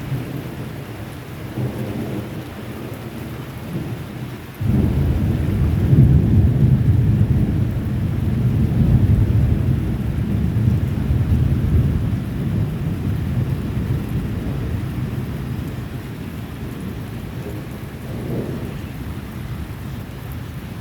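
Thunder over rain. A sudden loud clap of thunder about four and a half seconds in rumbles on for several seconds and then slowly fades, with a smaller rumble near the end.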